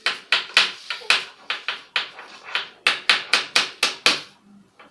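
A pen banged repeatedly on a glass-topped table: about fifteen sharp taps in quick, uneven succession, stopping shortly before the end.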